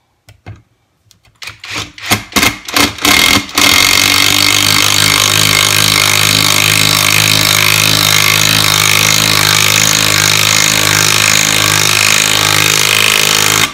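Greenworks 24V brushless cordless impact driver driving a 7/16-inch-head lag bolt into a 4x4 block with no pilot hole. A few short trigger bursts start the bolt, then about ten seconds of steady loud hammering, which cuts off as the bolt seats.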